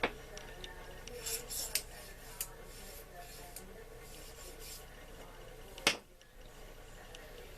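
Rubbing and light scraping on a small metal gun part, an AR-15 charging handle, as oil is worked over it, with scattered small clicks and one sharper knock about six seconds in.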